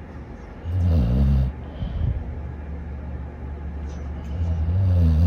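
Dog snoring: two loud, low snores about four seconds apart, with a quieter low snoring breath between them.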